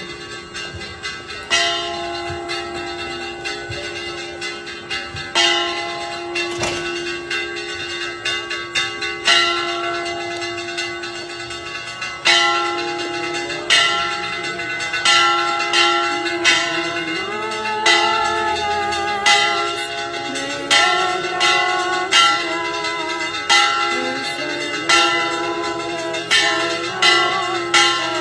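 Church bells pealing (a repique): single struck strokes, each ringing on with a long hum, sparse at first and coming faster, about once a second, from roughly halfway through.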